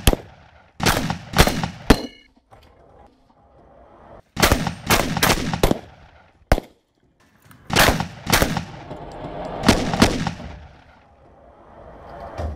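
Competition shotgun fired rapidly, about a dozen shots in quick strings of two to four with short pauses between strings, each shot trailing off in an echo.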